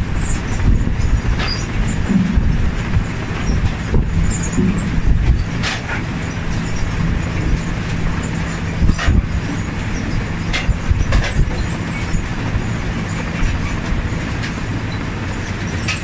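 Potato harvester running: a steady low machine rumble with a constant hum, and scattered sharp knocks as potatoes tumble along the slatted picking-table conveyor.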